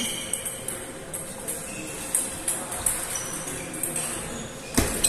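Table tennis balls clicking off paddles and tables, an irregular string of light knocks from this and neighbouring tables, with one louder thump near the end.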